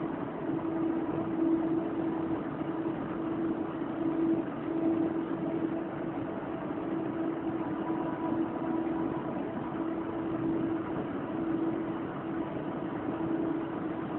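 KLIA Transit electric train standing at the platform, its onboard equipment giving a steady hum with a low droning tone that wavers slightly.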